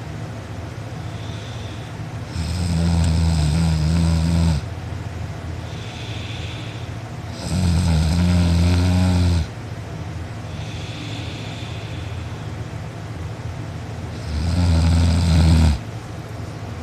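A sleeping person snoring loudly: three heavy, rumbling snores, each lasting one and a half to two seconds and coming about every five to six seconds, with softer hissing breaths between them.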